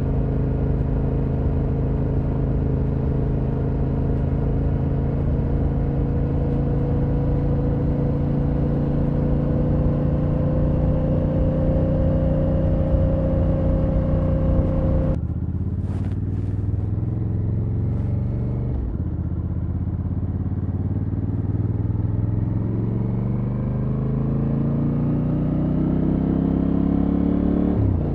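Exhaust of a Honda Africa Twin CRF1100L's parallel-twin engine while riding: a steady cruise with the note slowly rising, then about halfway a sudden drop after which the revs climb under acceleration, falling and climbing again about two-thirds through as it changes up a gear.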